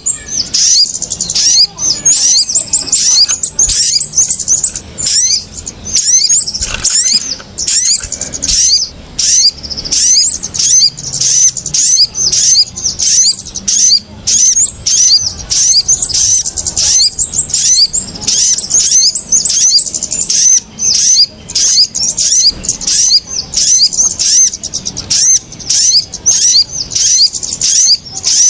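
Bird-trapping lure recording of kemade and sogon (sogok ontong) birds calling in agitation: dense, rapid high-pitched chirps, several a second, with no break. Small birds that hear these alarm-like calls are drawn down to the lime sticks.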